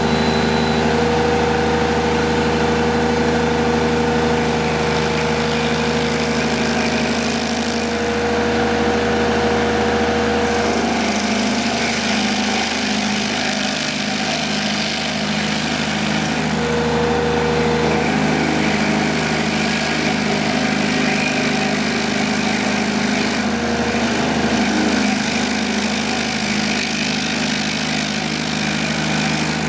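FSI D30-470 stump grinder running, its Kubota diesel engine going steadily throughout. The engine's tone shifts slightly about a third of the way in and again a little later.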